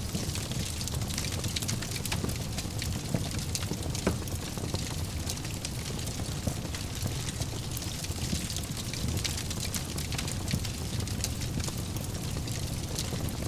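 Wood fire burning in a fireplace: a steady low rumble of flames with constant small crackles and a few sharper pops, the loudest about three and four seconds in and again after ten seconds.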